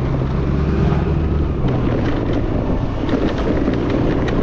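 Yamaha Fascino scooter's single-cylinder engine running steadily while riding, with wind buffeting the microphone and a few brief sharp knocks.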